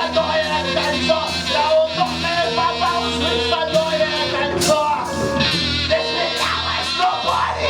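Live rock band playing, with drums, bass and plucked strings.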